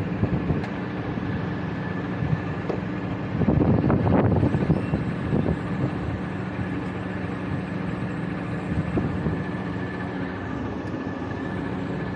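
Steady mechanical hum of running machinery with a few held tones, swelling with a louder rush about four seconds in.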